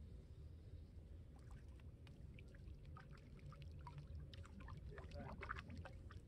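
Small, irregular water splashes from a hooked crappie thrashing at the surface as it is reeled in to the bank. The splashes start about a second and a half in and are busiest about five seconds in, over a low steady rumble.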